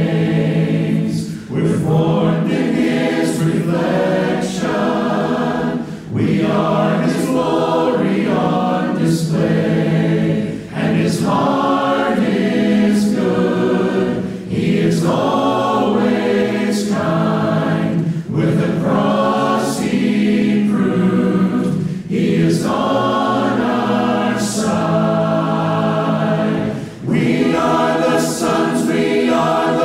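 A cappella choir singing a hymn in four-part harmony without instruments, with short breaks between phrases.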